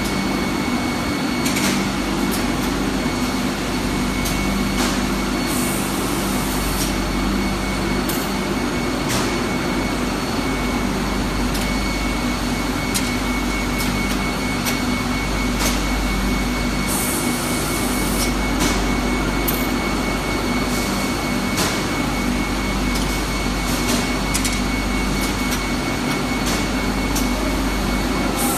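Steady whirring of PCB production-line machinery, with a low hum, a thin steady high whine and scattered light clicks.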